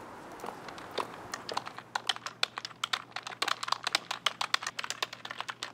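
Rapid typing on a computer keyboard: a few separate clicks at first, then quick, dense keystrokes from about two seconds in.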